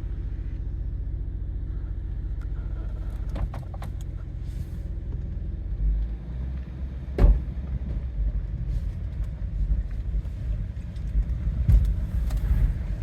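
VW Touareg 4.2 TDI standing and running, a steady low rumble that grows louder about six seconds in. A sharp knock comes about seven seconds in, and a few clicks near the end.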